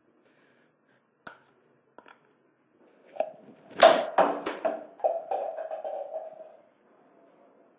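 A few light taps of a paintbrush against a paint pot, then, about four seconds in, a sudden flurry of loud splats and knocks as red paint is flung at a wall. A held ringing note follows and fades out well before the end.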